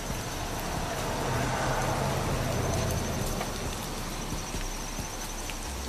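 Beef bacon and fried egg sizzling softly in rendered fat on a 17-inch tabletop Blackstone griddle, with fine crackles and pops. A low rumble swells and fades about one to three seconds in.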